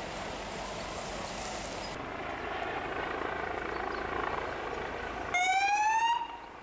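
Steady outdoor rumble and hiss, then, about five seconds in, an emergency-vehicle siren sounds loudly, rising in pitch for under a second before cutting off abruptly.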